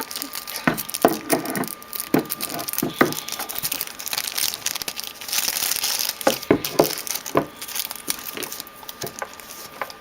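Packaging being handled during an unboxing: irregular crinkling and rustling with scattered sharp clicks and taps, and a few brief squeaks.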